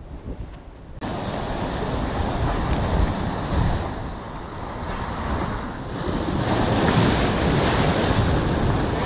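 Surf surging and splashing over jetty rocks close by, starting suddenly about a second in and swelling louder about six seconds in, with wind buffeting the microphone.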